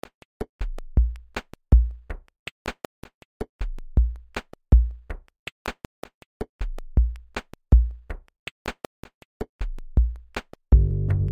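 Electronic music: a drum-machine beat of deep bass kicks and sharp, quick clicks, with a sustained low synth chord coming in near the end.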